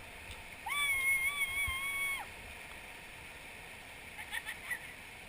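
A person's high-pitched held call, like a whoop, lasting about a second and a half, over the steady rush of river water.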